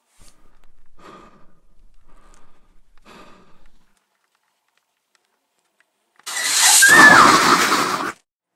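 Faint breathing, about one breath a second, then after a silent pause a loud, harsh shriek with a pitch that rises and falls, lasting about two seconds and cutting off abruptly.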